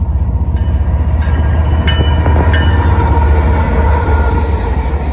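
Freight train passing close by: a loud, steady low rumble, with a few short high metallic squeaks from the wheels about two seconds in.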